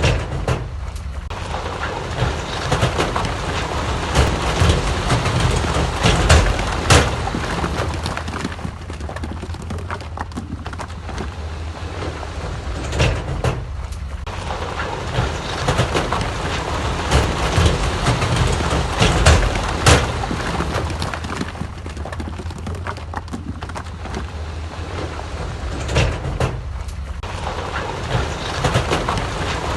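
Heavy diesel earthmoving machinery at work: a deep, steady engine drone with a dozen or so sharp knocks scattered through it, like rock and metal striking.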